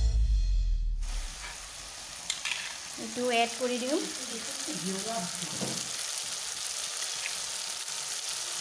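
Chopped tomatoes sizzling in hot oil in a kadai, stirred with a wooden spatula; the sizzle is a steady hiss. A music track cuts off about a second in.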